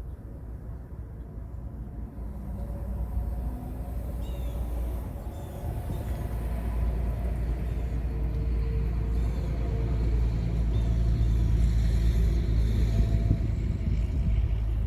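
A road vehicle approaching and passing, its low rumble growing louder and peaking near the end. Faint short bird chirps sound here and there.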